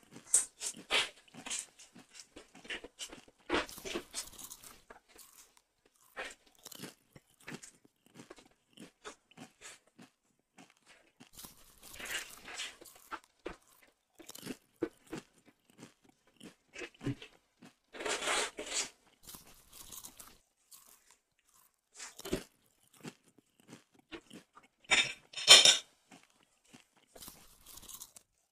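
Chewing and crunching on chicken feet, crunching through the cartilage and small bones in irregular bites, with the loudest burst of crunches near the end.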